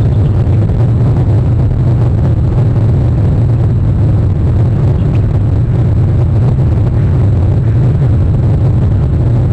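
Loud, steady low rumble with a fainter hiss above it, unchanging throughout.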